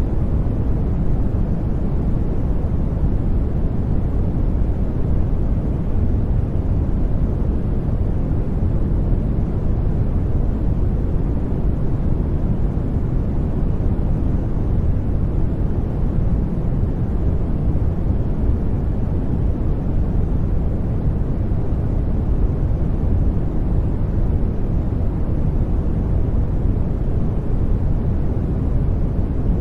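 Steady brown noise: a deep, even rumble of random noise, strongest in the low end and falling away towards the highs, with no change in level.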